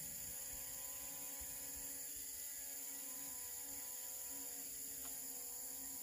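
Small consumer quadcopter drone hovering overhead, its propellers giving a steady buzzing hum whose pitch dips slightly twice as it adjusts position, over a steady high-pitched hiss.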